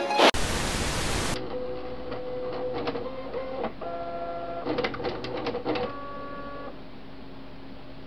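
A 14-year-old Canon BJ-200 bubble jet printer running, sounding musical: its mechanism whines in steady tones at several pitches that change every second or so, with bursts of rapid clicking in the middle, then settles into a low steady hum. A second-long burst of hiss comes first.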